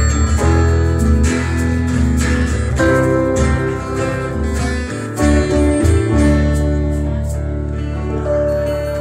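Live instrumental music: acoustic guitar strummed along with a digital keyboard playing chords. From about six seconds in, a low bass note holds steady under the changing chords.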